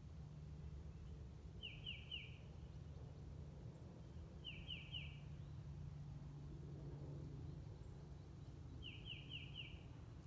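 A small songbird calling three times, each a quick run of three or four high, down-slurred notes, over a faint steady low rumble.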